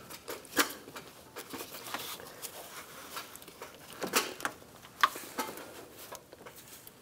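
Gloved hands handling a plastic fitting and an A/C line: a scatter of light clicks and knocks as the parts are worked into place, the sharpest about four and five seconds in.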